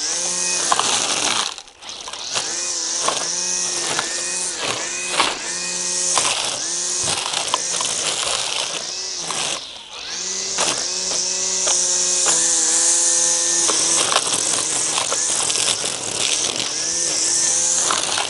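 Milwaukee M18 cordless string trimmer running on high speed and cutting grass: a motor whine with the whir of the spinning line, its pitch dipping and recovering over and over as the line meets the grass. It eases off briefly twice and winds down at the very end.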